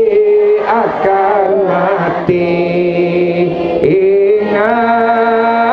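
A man chanting an Arabic devotional zikir into a microphone, drawing out long held notes that step and slide from pitch to pitch.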